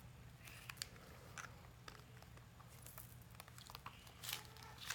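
Faint crinkling and tearing of plastic wrapping on an L.O.L. Surprise Confetti Pop ball being unwrapped: scattered small crackles, with a louder rustle about four seconds in.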